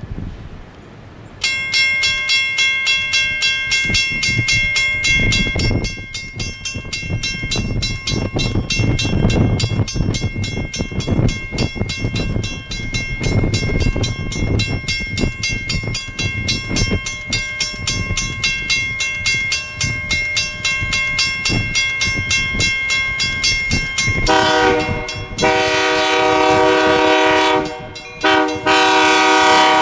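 Diesel freight locomotive's multi-chime air horn sounded in one long, unbroken blast of about twenty seconds as the train approaches, over the rumble of the engine and wheels. Near the end a lower-pitched horn chord sounds in blasts broken by two short gaps.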